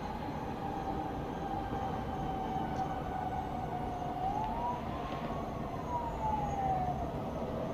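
An emergency vehicle's siren wails, its pitch rising once about four seconds in and falling back near the end, over a steady low rumble of town noise.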